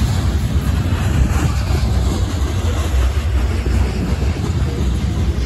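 Covered hopper cars of a freight grain train rolling past, a steady low rumble of steel wheels on the rails.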